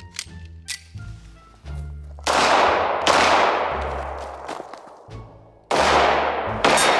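Four pistol shots fired as two pairs: two about a second apart, then two more a little over two seconds later. Each shot rings out and decays slowly. Background music with a low bass line plays underneath.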